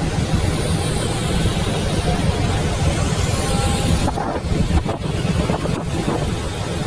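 Steady outdoor background noise: a dense low rumble under an even hiss, with no single event standing out.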